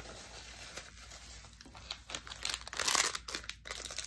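Crinkling and rustling as a paper napkin and a small wrapper packet are handled, loudest about three seconds in.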